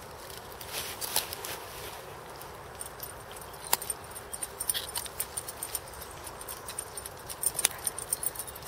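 Dogs moving about, their collar tags jingling in quick irregular clicks that come more often in the second half.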